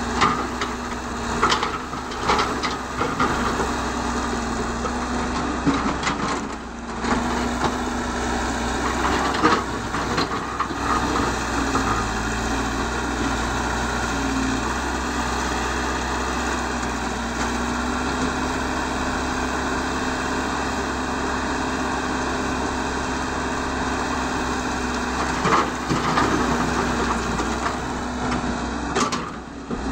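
Caterpillar 312 hydraulic excavator's diesel engine running steadily under load as the bucket digs through rocky soil. Knocks and clatter of stones come in the first ten seconds or so and again near the end.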